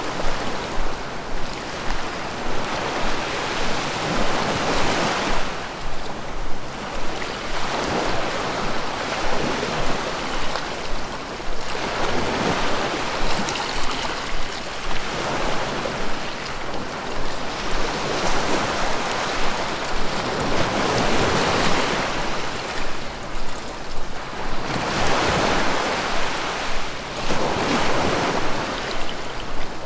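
Ocean surf rolling onto a beach: waves swell and wash back every few seconds, one after another.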